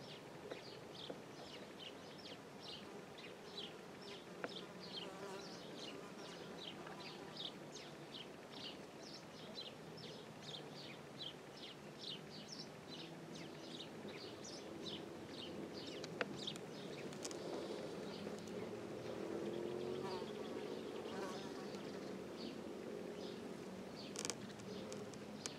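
Faint buzzing of a flying insect, swelling in the second half, over a run of short high chirps repeated a few times a second.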